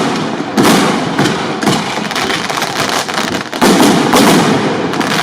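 Fireworks going off without pause: a continuous hissing crackle broken by sharp bangs, several in the first two seconds and another cluster near four seconds.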